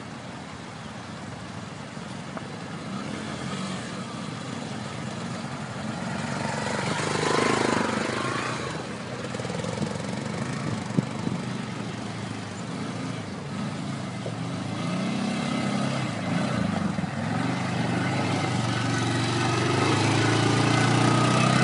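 Motorcycle engine running on a rocky dirt track, with a sweep in engine pitch about a third of the way in. It grows louder toward the end, settling into a steady low note close by.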